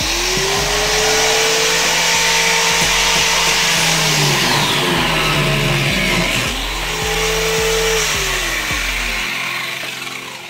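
An electric motor spinning up and running with a loud rushing hiss. It winds down about four seconds in, starts again about two seconds later, and winds down near the end.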